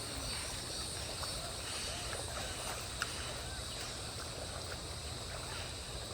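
Steady outdoor noise of rushing water and wind, with faint distant voices and a single sharp click about three seconds in.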